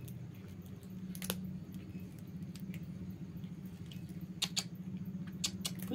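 A cat chewing food, with a few sharp clicking bites, more of them in the second half, over a steady low hum.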